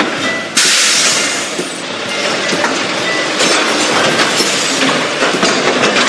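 Garbage truck sound effect: a loud, dense mechanical rattle with many sharp clatters, starting suddenly about half a second in.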